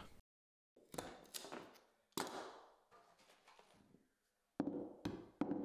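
Scattered sharp taps and knocks, about six in two groups with quiet between: wooden carpet tack strip being set down and hammered onto a concrete floor.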